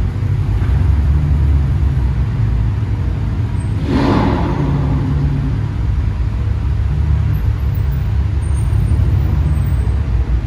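Low rumble of Aston Martin engines running as a car drives slowly into the line-up, with a brief louder surge about four seconds in.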